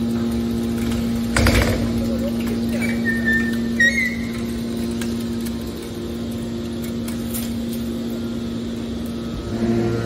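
Hydraulic scrap metal baler running with a steady hum while a compressed bale of scrap is pushed out of the press chamber. A loud knock comes about a second and a half in, and a short high metallic squeal near four seconds.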